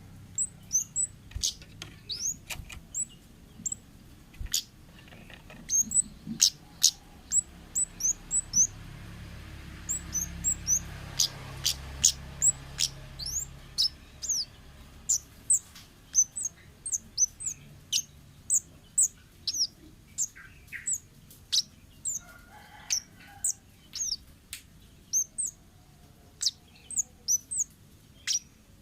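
Wild kemade birds calling: a rapid string of short, sharp, high-pitched chirps that sweep downward, several a second, with a faint low rumble underneath through the middle.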